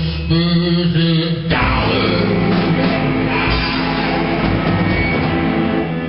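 Live rock band playing: electric guitars, bass guitar and drum kit under a lead melody. A single held melody line opens, and the full band comes in about one and a half seconds in.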